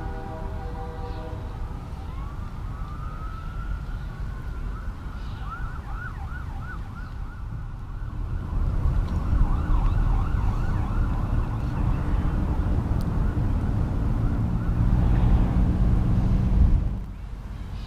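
An emergency vehicle siren sounding in a slow rising wail, then switching to quick up-and-down yelps and back, over a low traffic rumble that grows louder and then cuts off suddenly near the end. A multi-tone horn chord fades out in the first second or so.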